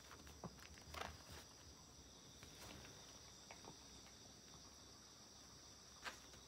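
Faint sniffing of a chihuahua nosing through a felt snuffle mat for hidden food, with a couple of louder snuffs about a second in and near the end, over a steady faint high-pitched hum.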